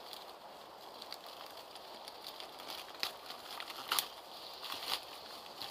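Plastic packaging crinkling and crackling as a wrapped item is handled inside a cardboard box, with sharper crackles about three, four and five seconds in.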